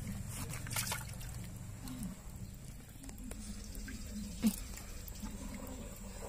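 Water splashing and dripping as live climbing perch (papuyu) are handled in a basin and lifted out by hand, with one sharper splash a little past the middle. A low steady hum runs underneath.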